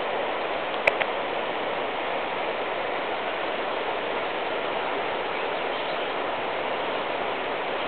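Floodwater rushing steadily, a constant hiss-like roar of moving water. Two sharp clicks about a second in.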